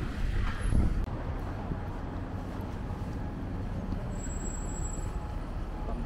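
Steady low vehicle rumble, with a brief thump about a second in and a faint high whine near the end.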